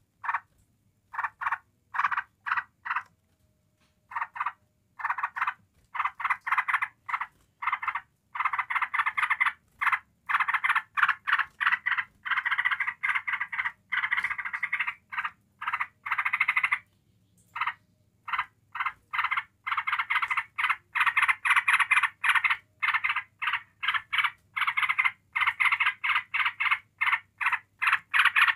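Yellow-vented bulbul giving its rapid chattering 'ngebren' song: short rattling bursts repeating several times a second, broken by brief pauses in the first few seconds, then nearly unbroken. This aroused, continuous chatter is the kind kept as a lure to rouse other bulbuls.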